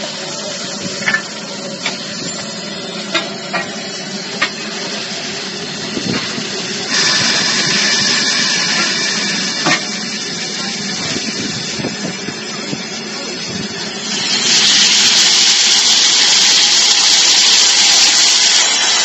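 Steam locomotive standing at the platform and hissing steam. The hiss steps up about seven seconds in and gets much louder from about fourteen seconds in, with a few scattered metallic clanks early on.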